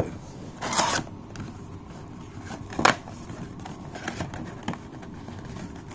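Cardboard trading-card box being opened and its foil card packs handled. There is a scraping rustle about a second in, a single sharp click just before the three-second mark, then a few faint taps and rustles.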